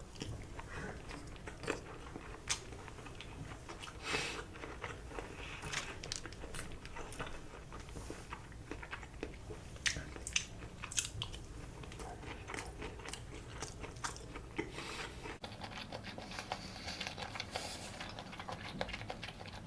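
A person chewing sushi close to the microphone: wet mouth sounds with many irregular sharp clicks.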